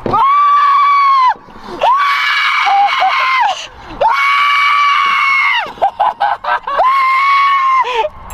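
A person screaming in excitement, four long held screams in a row, over a giant bass just caught.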